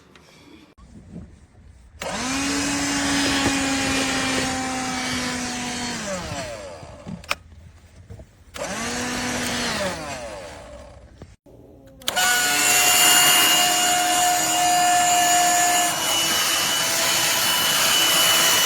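Black+Decker Dustbuster cordless handheld vacuum switched on three times: a run of about four seconds, a short burst, then a longer run from about twelve seconds in that stops abruptly. At the end of each of the first two runs the motor's whine falls as it spins down.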